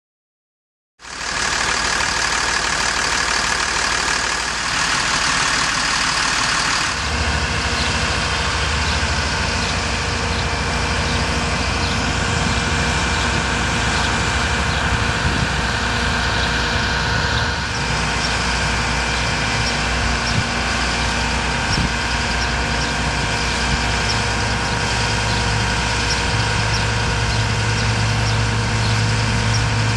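The 2005 Freightliner M2 bucket truck's engine running steadily while the Altec AN650-MH boom is worked. The sound starts about a second in, changes character a couple of times, and a deeper hum grows stronger near the end.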